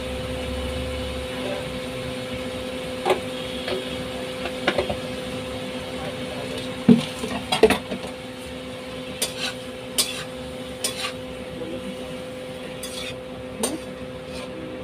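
A steel spatula clinking and scraping against a steel kadhai as onions and tomatoes are stirred in hot oil, about ten separate clinks, over a steady frying hiss and a low hum.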